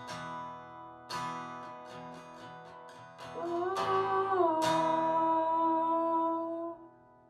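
Acoustic guitar strummed a few last times to close the song, each chord left to ring out, with a long wordless sung note over the final chords that rises briefly and falls back. The music stops a little before the end.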